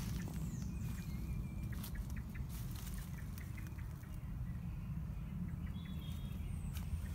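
Woodland birds calling with short whistled notes and glides over a steady low rumble, with scattered light clicks throughout.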